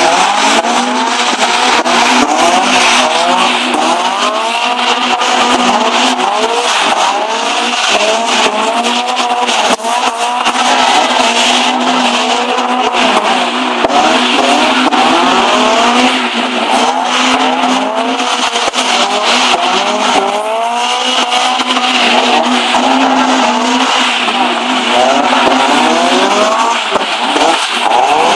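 Toyota AE86 twin-cam four-cylinder engines revving hard up and down, over and over, while drifting, with tyre squeal and a steady low hum underneath.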